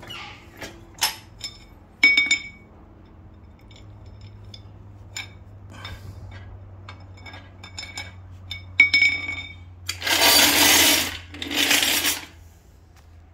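A hydraulic trolley jack being handled: several sharp metallic clinks with a short ring, then two short, harsh rushing scrapes one after the other near the end.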